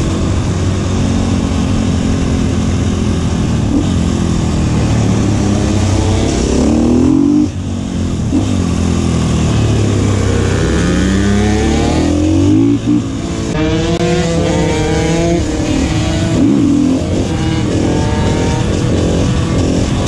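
Supermoto motorcycle engine revving hard under acceleration, its pitch climbing again and again, with brief drops about seven and a half and thirteen seconds in where the throttle closes before it climbs once more.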